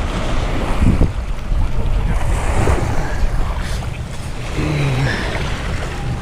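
Wind rumbling and buffeting on the microphone, over water washing at the shore.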